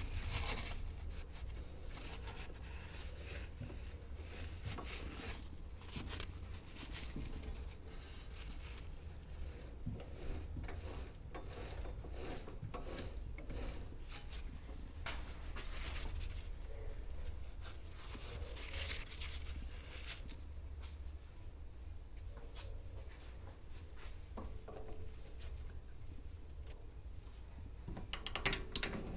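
Irregular rubbing and scraping strokes from hand work, over a steady low hum.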